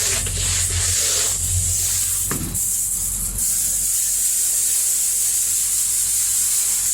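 Farm tractor engine running steadily, heard as a low hum under a strong, steady hiss, with one brief knock a little over two seconds in.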